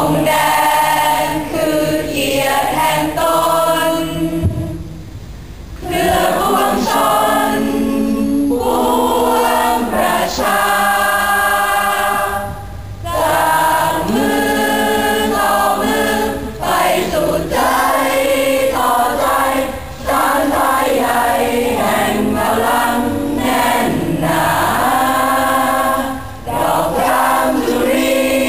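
A large group of voices singing together in slow phrases with long held notes, with short breaks between phrases.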